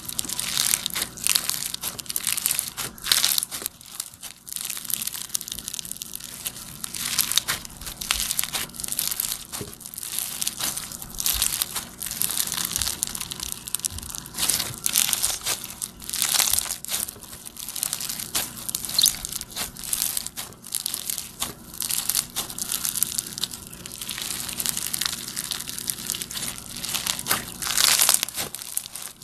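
Floam slime, slime packed with small foam beads, being squeezed, stretched and pressed by hand, giving a dense, irregular crunchy crackling with frequent sharper crackles.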